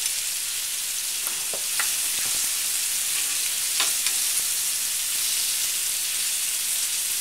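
Flour-coated beef stew meat sizzling steadily in hot olive oil in a skillet as it browns, with a few faint clicks.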